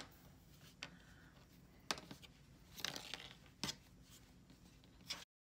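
Faint rustling and about five soft clicks from fleece strips being handled and pulled while tying a square knot. The sound cuts out completely near the end.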